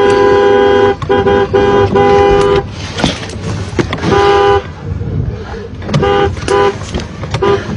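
Car horn honked again and again, its two notes sounding together. Some blasts are held about a second, and near the end come short quick taps.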